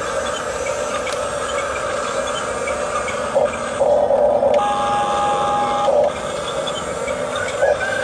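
Huina 1569 RC bulldozer's electric track motors and gearboxes whirring as it drives and turns on dirt. A louder burst with a steady whine runs from about four to six seconds in.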